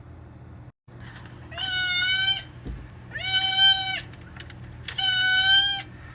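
Domestic cat giving three long, loud yowling cries, each just under a second and held at one steady pitch, with short pauses between.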